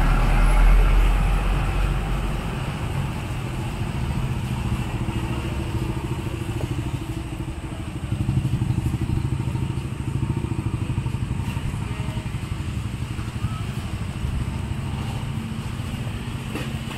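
A motorcycle engine idling steadily, a low, evenly pulsing rumble that is heaviest for the first two seconds.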